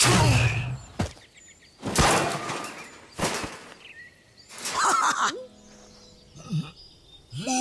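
Cartoon crash sound effects: four sudden crashes and thuds in the first three and a half seconds, followed by short squeaky character vocal sounds.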